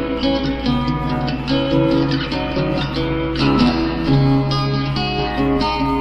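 Instrumental music: plucked guitar notes changing every half second or so over a steady low bass tone.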